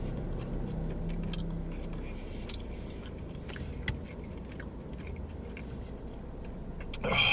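A person eating chicken wings: quiet chewing and a few faint clicks from handling the food and its container, over a steady low hum. A short louder mouth noise comes near the end.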